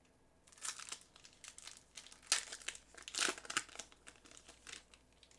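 A trading-card pack's foil wrapper crinkling and tearing as it is opened and handled, in irregular rustling bursts, loudest about two and three seconds in.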